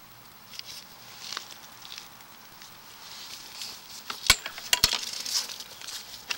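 Scraping and rustling from a sewer inspection camera's push cable being drawn off its reel, with two sharp clicks a little over four seconds in.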